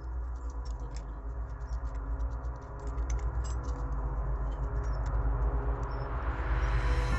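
Small electric motor of a model borewell drilling rig running with a steady low hum, with irregular light clicks and rattles throughout. A rising whoosh builds near the end.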